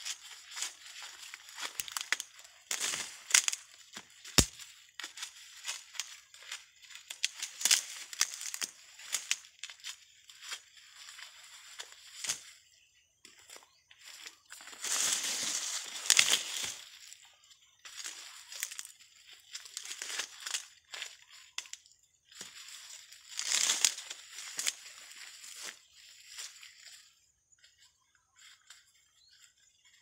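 Dry corn husks and leaves crackling and tearing as ears of corn are husked and snapped off the stalk by hand with a husking peg, in irregular bursts. The longest and loudest bursts come about halfway through and again about three-quarters of the way in, and it grows quieter near the end.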